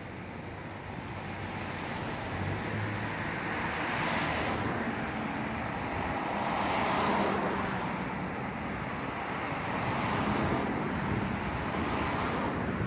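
Road traffic on a wide multi-lane road: cars passing one after another, their tyre and engine noise swelling and fading about four times.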